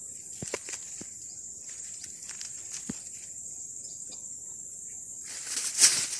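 Steady high-pitched insect chorus, with faint scattered crackles of dry leaves as a hand picks through a heap of leaf litter. A louder rustle comes near the end.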